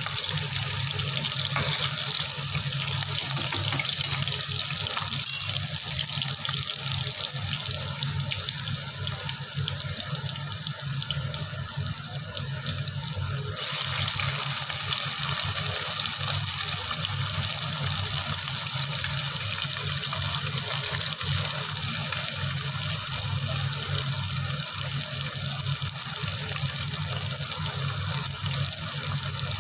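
Water running steadily from a kitchen tap, with a steady low hum under it; the flow gets a little stronger about halfway through.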